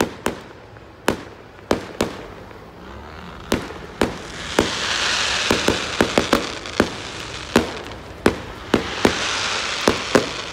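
Aerial fireworks bursting overhead: a quick, irregular string of sharp bangs. About halfway through and again near the end come two longer stretches of hiss.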